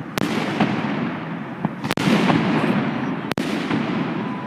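Fireworks going off: three loud bangs about a second and a half apart, each followed by a spreading crackle of smaller pops.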